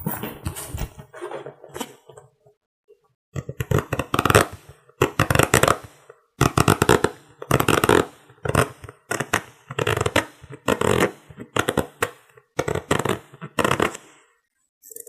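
Close-miked makeup tools working on the microphone: a steady run of short rubbing, brushing strokes, about two a second, after a brief pause.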